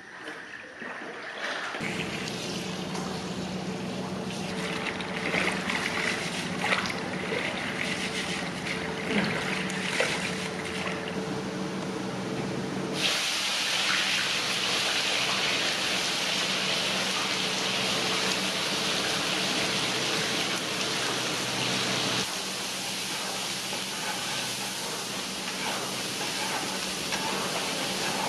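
Sliced onions frying in hot oil in a large steel cauldron, over a steady hum. About halfway through the sizzle grows much louder as the onions go into the oil, and it eases a little later on.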